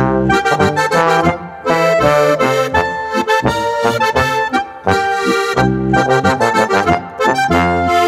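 A Boarischer, a Bavarian folk dance tune, played by a folk-music trio, with an accordion carrying the melody over a regular bass line.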